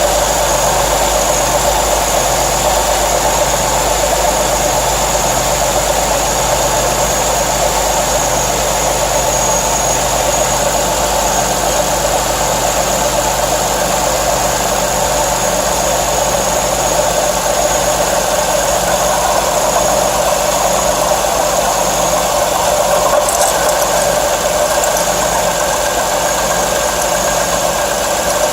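Car engine running steadily at idle, with the unexplained new mechanical noise the owner is asking about, unchanged throughout, and a thin high steady whine over it.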